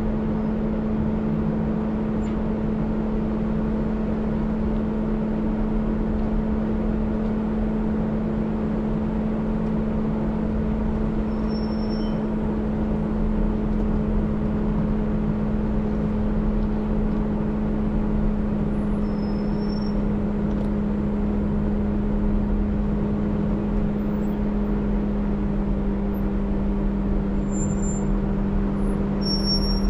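Off-road vehicle's engine running steadily at a near-constant pitch over a low rumble of driving noise.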